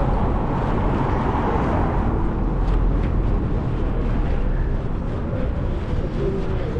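Steady city street noise of passing car traffic.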